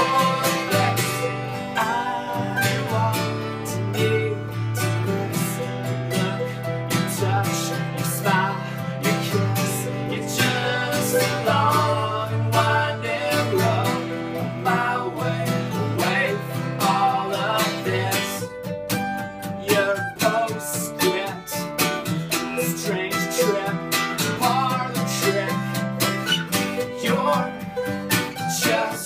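Live acoustic country-folk music: an acoustic guitar and a mandolin strummed and picked together, with a man singing over them.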